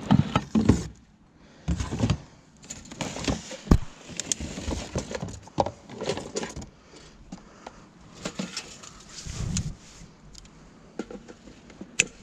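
Hand-handling of discarded junk: irregular knocks, clatters and rustling as items are picked up, moved and sorted through.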